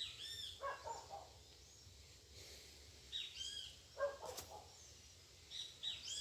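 Birds calling: short arched chirps, in three groups about three seconds apart. A few softer, lower sounds and one sharp snap come in between.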